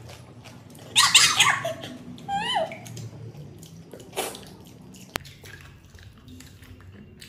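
People eating pani puri: loud wet slurping and crunching about a second in and again near four seconds, with a short high, wavering whimper-like vocal sound between them and a sharp click a little later.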